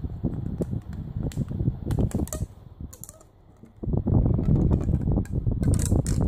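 Handling noise from hands working a plastic bottle cap, a clear plastic sheet and string close to the microphone: rubbing, knocking and many small clicks and taps, with a quieter pause about halfway through.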